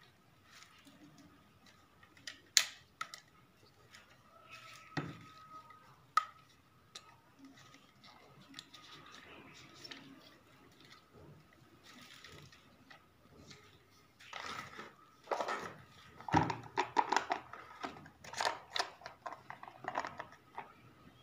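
Clicks, knocks and rattles of a spin mop's telescopic stainless-steel handle, plastic clip and plastic mop head being handled and fitted together. A few single sharp clicks, then a dense run of clicks near the end.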